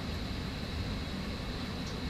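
Steady hum and hiss of a running fan, with a faint steady high whine.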